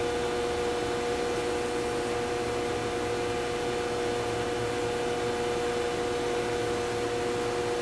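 Vacuum attached to a CNC laser-engraving setup, running steadily: an even hiss of rushing air with a constant whine.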